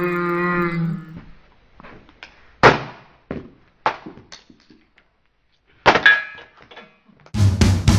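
A held hummed note fades out about a second in, followed by a few scattered knocks and taps, one with a brief ring about six seconds in. A drum beat starts near the end.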